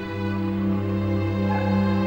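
Slow, sustained background music of long held notes; a new low chord comes in at the start and is held.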